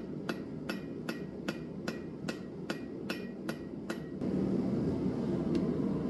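Steady hand-hammer blows, about ten in a row at roughly two and a half a second, flattening a small piece of hot steel cut from a bolt. The blows stop about four seconds in, leaving a steady low rushing noise that was under them throughout.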